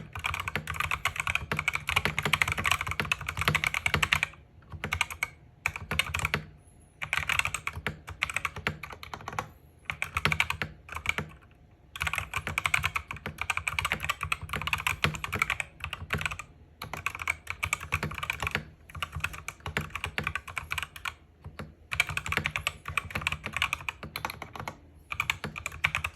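Fast typing on a Gamakay MK61 mechanical keyboard with Gateron red linear switches: a dense clatter of keystrokes in runs, broken by several short pauses.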